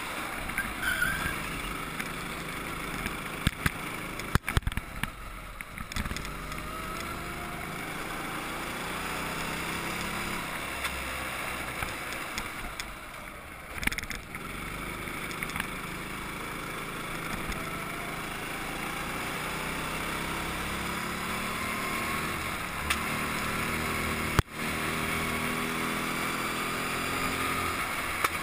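Go-kart engine running under the onboard camera, its pitch rising steadily as it accelerates and falling away when the driver lifts off, about five, fourteen and twenty-four seconds in. A few sharp knocks come from the kart about three to five seconds in.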